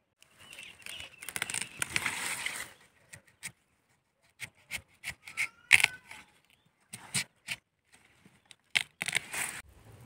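Close rustling and crackling of leafy plant stems being handled, a longer burst early on and then a string of sharp clicks and short scrapes.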